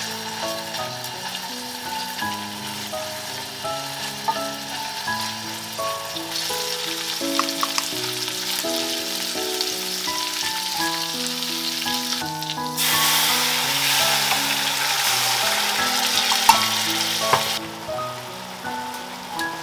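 Food sizzling as it fries in a pan, much louder for a few seconds past the middle before dropping back suddenly, with a few sharp clicks. Background music of held, stepping notes plays throughout.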